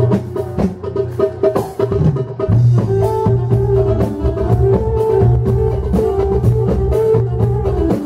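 Live band playing an instrumental passage, with a darbuka beating out a steady run of quick hand strokes over sustained bass and melodic instruments.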